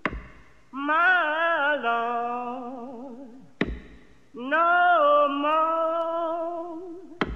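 A voice singing two long, wavering a cappella phrases in a blues style. Each phrase is set off by a single sharp percussive hit, the hits about three and a half seconds apart, with a third hit at the very end.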